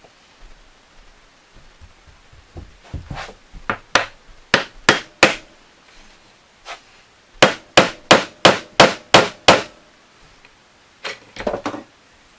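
Hammer tapping wooden blocks down onto glued dowels in a wooden gear: a few uneven taps, then a steady run of about nine blows at roughly three a second, then a short flurry of taps near the end.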